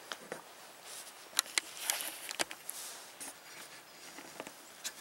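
Close handling noise: a scatter of sharp clicks and brief rustles of clothing and gear as the camera is swung round and the hunter shifts beside his bow.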